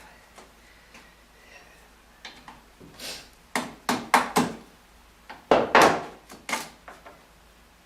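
Window frame being knocked and worked loose from its glass: a series of sharp knocks and clacks, coming in two bunches about three seconds in and again about five and a half seconds in.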